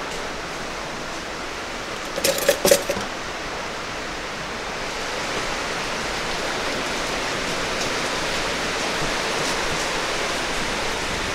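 Plastic colander and stacked dishes knocking together in a short clatter about two seconds in, over a steady hiss.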